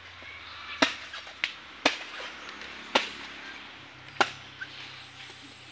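Bolo knife chopping into green coconuts: four sharp strikes roughly a second apart.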